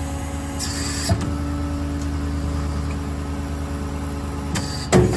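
Steady drone of a running Ford 6.7 Power Stroke diesel driving the hydraulic service crane as it is operated. A brief hiss comes about a second in, and a sharp knock near the end.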